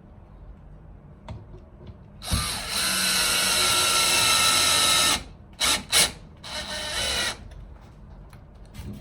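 Cordless drill-driver with a hex (Allen) bit driving a furniture assembly screw into a wooden rack. One run of about three seconds, starting with a brief rise in pitch, is followed by two quick bursts and a shorter final run.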